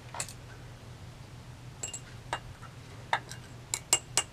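Glass stirring rod clinking against a small glass beaker: sharp, ringing clicks, a few scattered ones at first and then coming quicker near the end.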